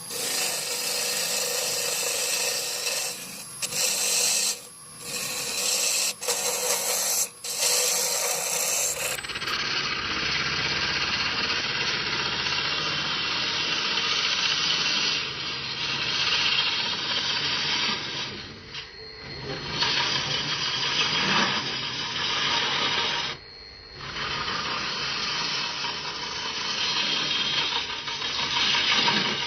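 Wood being turned on a lathe: a cutting tool scraping against the spinning wood in a continuous rasping hiss that breaks off and changes abruptly several times.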